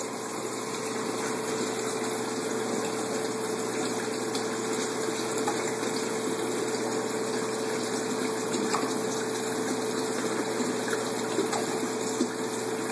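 Aquaponics system's water pump running steadily with flowing water and a constant hum.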